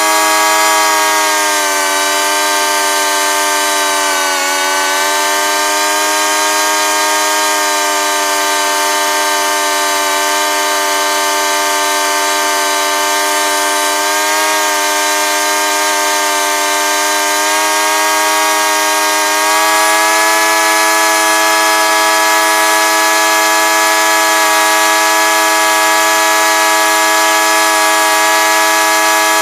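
Two-stroke paramotor engine and propeller running at high throttle in a climb, a steady droning note. Its pitch dips briefly about four seconds in and again around fourteen seconds, and it gets a little louder at about twenty seconds.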